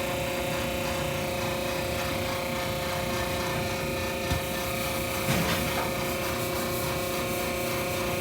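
A machine running with a steady drone of several tones held at an even pitch. This is the noise that shows when the device is in use. Two faint knocks come about four and five seconds in.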